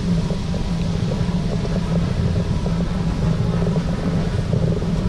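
City street traffic: a steady low engine hum from cars at the curb, over an even hiss.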